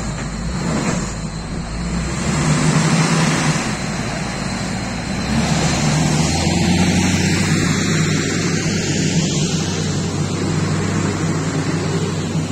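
Heavy diesel engines of a wheel loader and a dump truck running steadily while they work, under a steady hiss.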